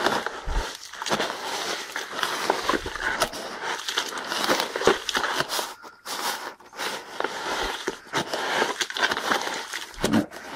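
A wet, gritty calcium-block mix of shell grit, calcium carbonate and dolomite being stirred just after water went in, with dense, irregular crackling and crunching.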